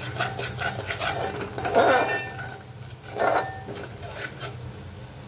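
A metal spoon stirs and scrapes a thick onion-and-coconut paste around a metal pot in a series of uneven strokes. The loudest strokes come about two seconds in and again a little after three seconds.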